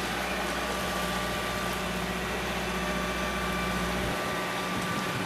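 Sailboat's inboard engine running steadily while motoring under way in calm sea, a constant even drone. The deepest rumble drops away about four seconds in.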